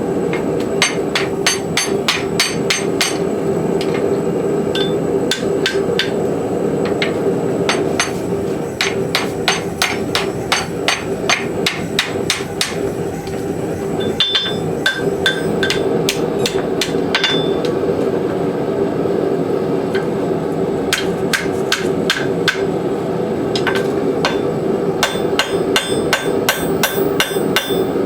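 Blacksmith's hammer striking hot steel on an anvil, drawing a horse-hoof rasp out into a taper for a scarf joint, in runs of quick blows with a ringing note and a few short pauses. A steady hum runs underneath.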